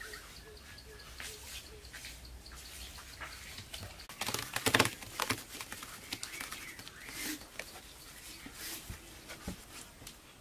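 Mud-building work with a clay pot: a short burst of scraping and knocking about halfway through, with smaller knocks after it, over faint bird calls.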